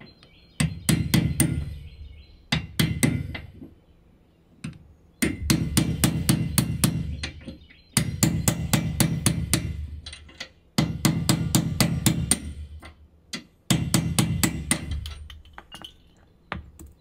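A hammer striking an old steel bolt to drive the plastic bushing out of a trailer's suspension hanger. Six runs of rapid, ringing metal taps with short pauses between.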